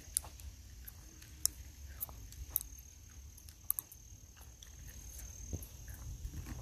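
Insects in a summer marsh holding one steady high-pitched trill that fades near the end, over a low rumble, with a few sharp clicks scattered through.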